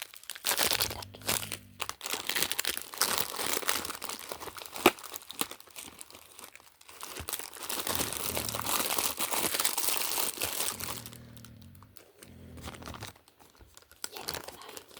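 Packaging being crinkled, crumpled and torn open by hand, a dense crackling in two long stretches with one sharp click about five seconds in. It dies down near the end.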